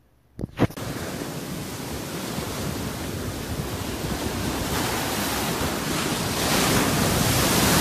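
Ocean surf breaking and washing up the beach, with wind buffeting the microphone. It grows louder near the end as a wave breaks. A short sharp knock comes about half a second in.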